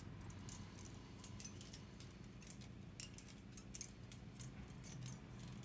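Vacuum pump of a heated screen-separator plate running with a low, steady hum, with irregular faint clicks and ticks over it.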